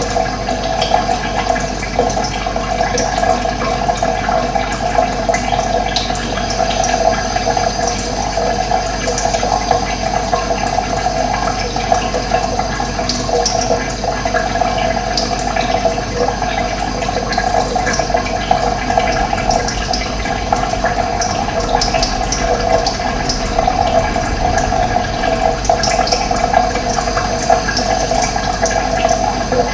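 Steady rush of running water, flowing evenly without a break, with short, scattered high bird chirps above it.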